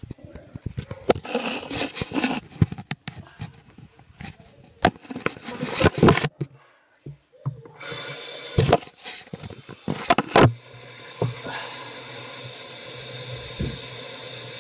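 Knocks and rustles of the camera being handled. Then, about eight seconds in, a sink tap starts running in a steady stream.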